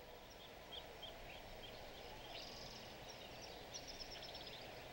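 Faint small birds chirping, with short high calls and a couple of quick trills, over a steady low background hiss.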